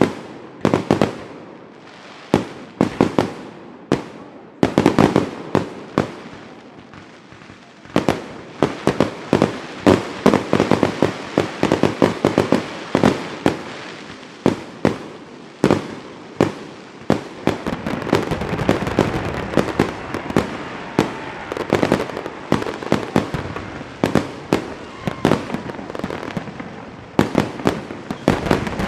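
Fireworks going off: separate loud bangs a second or so apart at first, then from about eight seconds in a dense barrage of overlapping bangs and crackling.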